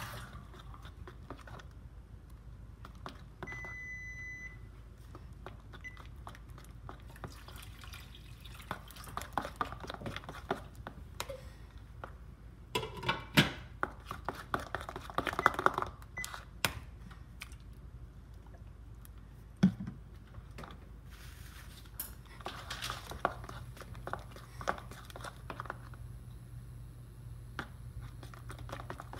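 Spoon stirring thick, wet slime in a bowl: squelching and the spoon clicking and scraping against the bowl, in spells with quieter stretches between, as borax activator is mixed into the glue and lotion.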